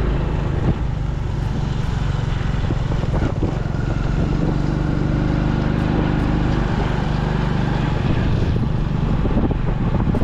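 Motor vehicle engine running steadily while riding, with wind buffeting the microphone. The engine tone is fuller for a few seconds in the middle.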